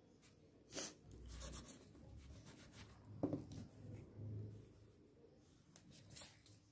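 Pencil sketching on drawing paper: faint scratchy strokes, with stronger ones about a second in and just after three seconds.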